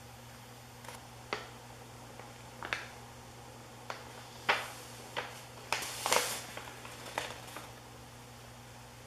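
About ten light knocks and rustles at irregular intervals, the loudest a little past the middle, from the parts and packaging of a boxed ceiling fan being handled. A steady low hum runs underneath.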